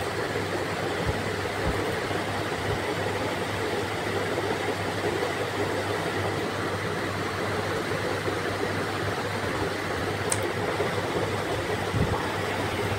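Steady background hiss with a low hum, room noise picked up by the narrator's microphone; a brief click about ten seconds in.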